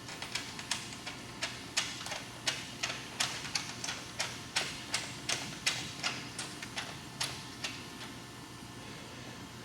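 Ratchet wrench clicking in short repeated strokes, about three sharp clicks a second, stopping about eight seconds in, over a low steady hum.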